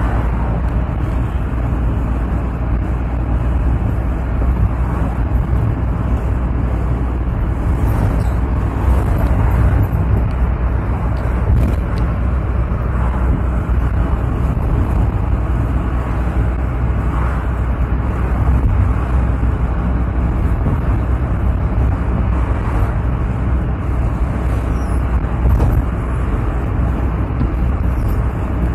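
Steady in-cab noise of a Mahindra Bolero Maxi Truck Plus pickup driving at road speed: a low engine drone mixed with tyre and wind noise.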